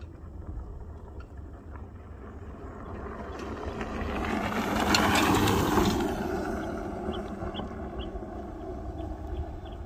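Senada Drifter fat-tyre electric bike riding past on a dirt trail: its tyres on the dirt grow louder as it approaches, are loudest about five seconds in as it passes, then fade as it rides away.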